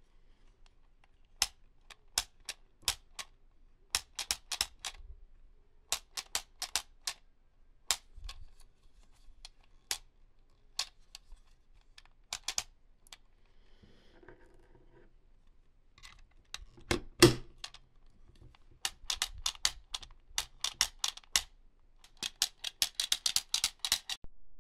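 Sharp clicks and taps of plastic toy vehicles and packaging being handled, in scattered clusters, with one louder knock about seventeen seconds in and a quick run of clicking near the end.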